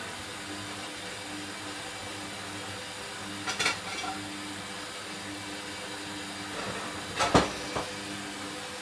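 Hoover Dynamic washing machine filling for a rinse: a steady hiss of water running in, with a low hum. Two sharp knocks or clatters break it, one about three and a half seconds in and a louder one near seven seconds.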